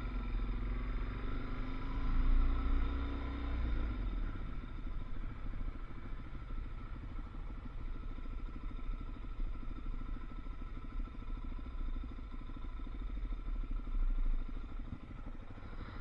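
Engine of a ridden vehicle running as it moves off, revving up about two seconds in, with a heavy low rumble throughout.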